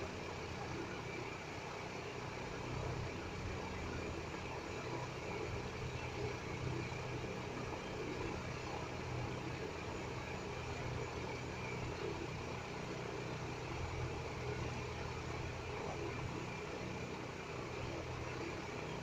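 Steady low hum with an even hiss, unchanging throughout, with no distinct clicks or events.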